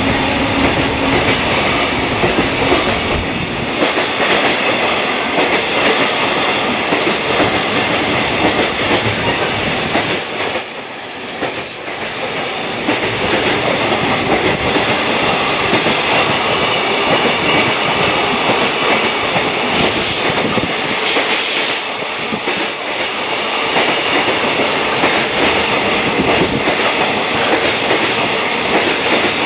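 Container wagons of a JR Freight train rolling past, with a continuous rumble and the wheels clattering over the rail joints. The sound dips briefly about eleven seconds in.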